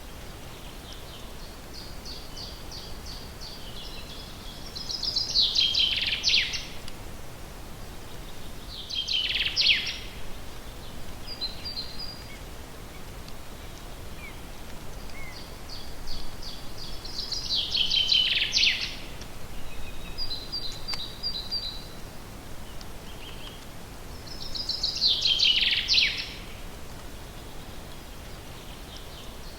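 A songbird singing in a forest, repeating one song about four times: each a run of quick high notes that ends in a louder, falling flourish, with a few short softer notes in between. A faint steady background noise runs under it.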